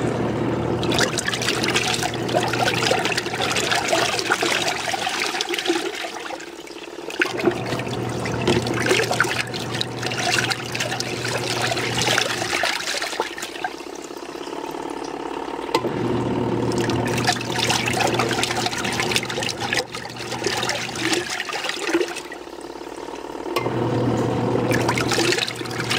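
Portable twin-tub washing machine's wash motor churning water and clothes, running in spells of about five seconds with short pauses between them, with water sloshing throughout.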